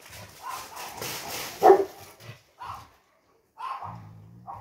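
Greek shepherd dogs barking: a few short barks, the loudest about a second and a half in, the rest quieter.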